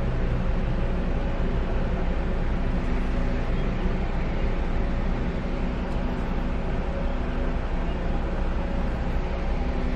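A car driving along a city street: its engine and road noise make a steady hum over a low rumble, with no change in speed.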